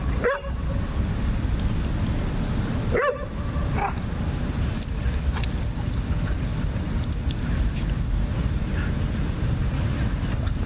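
Dogs wrestling in play, with short high yips: one just after the start, then two more about three and four seconds in. A steady low rumble runs underneath.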